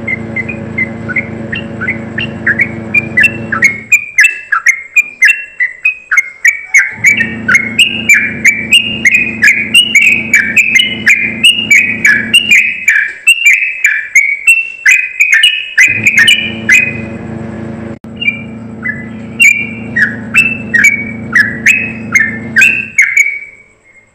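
Yellow-vented bulbul singing its high, rapid rolling song: a long fast run of short whistled, down-slurred notes, several a second, with one brief break in the middle. A steady low hum comes and goes underneath.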